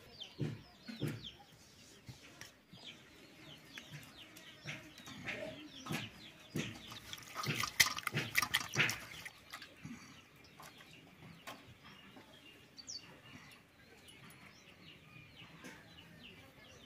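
Chickens clucking, with short chirps throughout. About halfway through comes a louder spell of splashing, rustling and clicking as a bunch of onion flower stalks is rubbed clean in a steel bowl of water.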